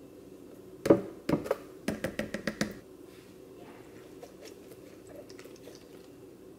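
Protein powder being scooped into a plastic blender jar: a sharp knock about a second in, a couple more, then a quick run of light taps as the scoop is tapped out, over a low steady hum.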